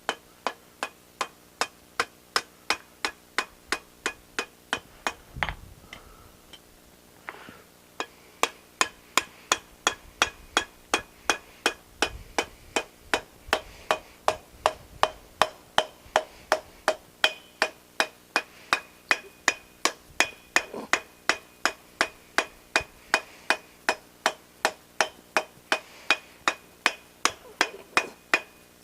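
Hand hammer striking steel on an anvil at a steady pace of about three blows a second, each blow ringing. The blows are rounding the piece and taking its edges off. The hammering pauses for about two seconds near a quarter of the way in, then resumes.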